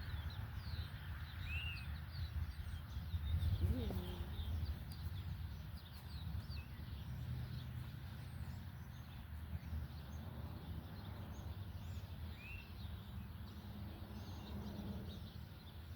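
Birds chirping intermittently over a low, steady rumble of wind or handling noise, with a few faint rustles.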